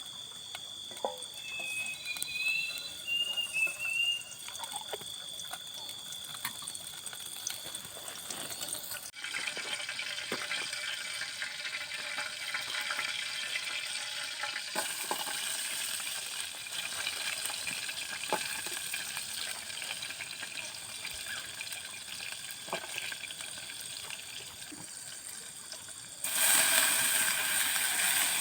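Forest ambience with insects' steady high buzz and a short warbling call, then, after a sudden change, a steady water-like hiss that grows louder about two seconds before the end.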